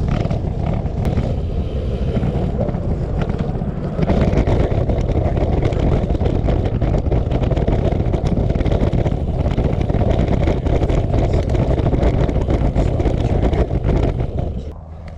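Wind rushing over the microphone of a moving bicycle, a loud steady noise that gets louder about four seconds in and eases off near the end.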